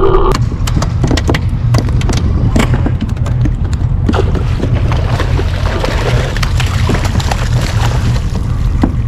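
A hooked salmon thrashing and splashing at the water's surface beside a boat, the splashing building from about four seconds in. Scattered sharp clicks and a steady low rumble run underneath.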